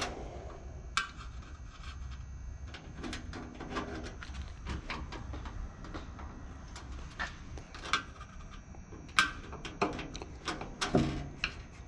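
Scattered knocks, clicks and rubbing as a wooden frame and the sheet-metal heater housing are handled and shifted, with a few sharper knocks about a second in and again near the end.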